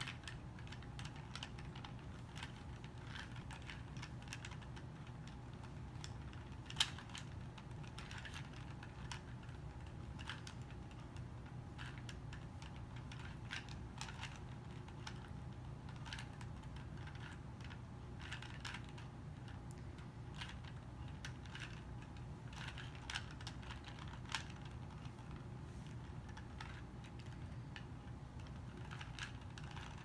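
2x2 Rubik's cube being turned by hand, its plastic layers clicking in quick irregular runs with short pauses, over a faint steady low hum.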